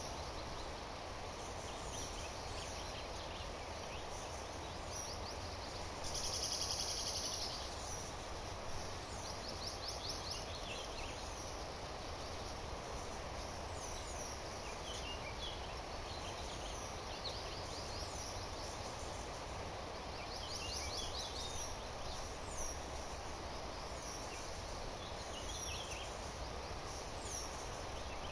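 Birds chirping and calling in many short, high notes and sweeps throughout, over a steady outdoor background with a thin high whine. A loud hissing buzz stands out for about a second and a half, around six seconds in.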